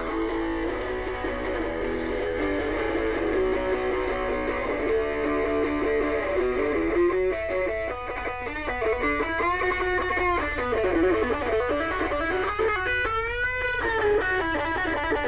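Electric guitar riff played through a small homemade germanium-transistor, transformer-coupled practice amplifier, with string bends in its second half and a steady low hum underneath.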